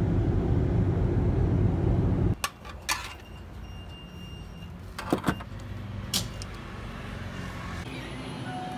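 Steady road and engine noise heard from inside a moving car on a highway, cutting off abruptly about two and a half seconds in. After that the background is quieter, with a few sharp clicks and knocks.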